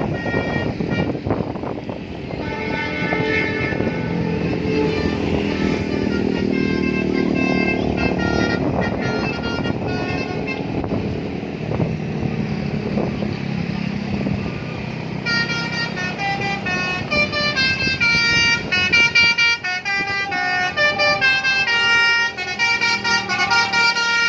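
A bus's telolet horn, a multi-tone musical horn, sounding chords of stepped notes over the bus engine. From about fifteen seconds in, it plays a quicker run of short notes like a melody.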